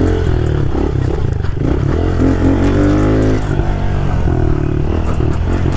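Mini dirt bike's engine revving as it is ridden, the pitch rising and falling over and over with the throttle.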